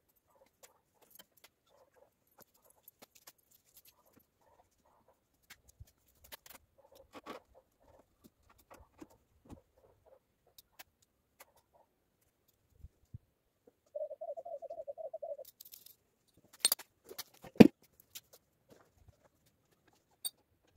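Cargo being handled on a trailer: faint rustling and clicking, a short buzzing rasp about two-thirds of the way through, then two loud knocks about a second apart.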